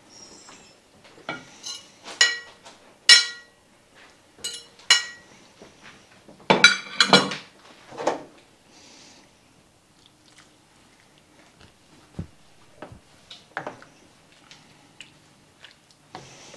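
A utensil scraping and clinking against a plate as shredded chicken is pushed off it into a soup pot: a series of short, sharp, ringing clinks, then a louder clatter about seven seconds in, and only faint taps after that.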